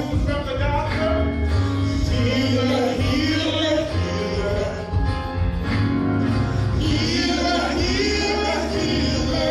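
Gospel worship music: voices singing over instrumental accompaniment with a strong bass line.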